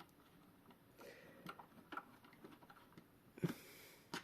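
Light, irregular clicks and taps of small metal clock-movement parts being handled as the bridge is taken off and its standoffs swapped, with a louder tap about three and a half seconds in.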